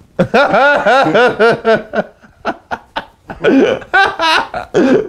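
Hearty laughter in quick repeated ha-ha bursts. It breaks off briefly about two seconds in, then starts again.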